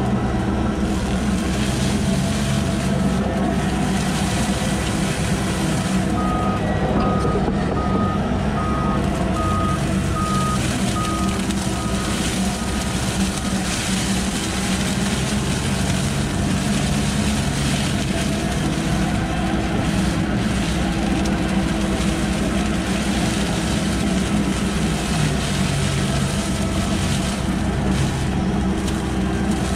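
Excavator engine and hydraulic mower head running steadily while the mower cuts tall grass and reeds. A warning beeper sounds a regular series of beeps for about six seconds, starting about six seconds in.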